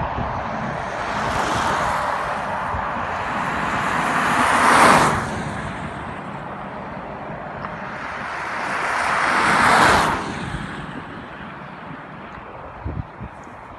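Road traffic: two vehicles drive past close by, about five seconds apart, each growing louder and then fading away.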